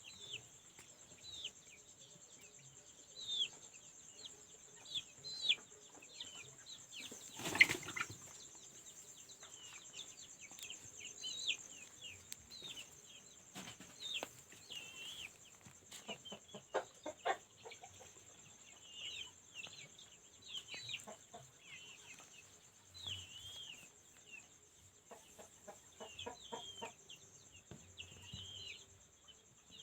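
Newly hatched chicks peeping over and over in short, high, falling chirps, over a steady high hiss. A single loud knock comes about seven and a half seconds in.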